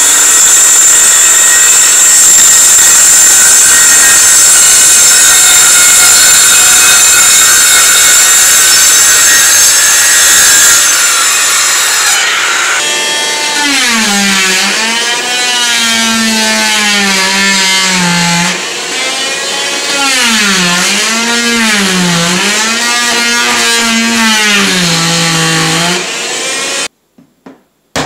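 Dust-collection circular saw cutting through engineered hardwood floorboards, running steadily for about twelve seconds. Then an oscillating multi-tool cuts into the boards, its pitch dipping and recovering as the blade bites, until it cuts off suddenly near the end, followed by a single hammer blow.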